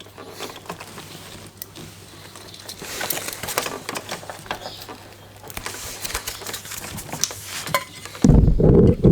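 Car wiring harness and its plastic connectors being handled: scattered light clicks and rustling of wires being pulled and sorted. Near the end a loud, muffled low-pitched sound sets in.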